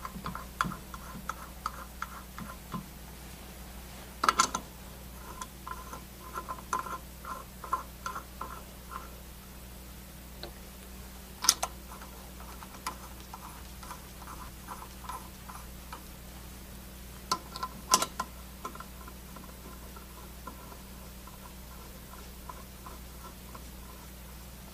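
Brass piston assemblies being screwed by hand into an aluminium refrigerant gauge manifold body, making runs of light metallic ticks. Three sharper clicks fall among them.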